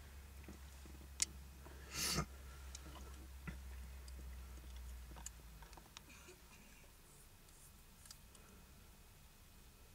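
Light clicks and rustling from a camcorder being handled inside a car, with one brief louder rustle about two seconds in. Under it runs a low hum that fades out about six seconds in.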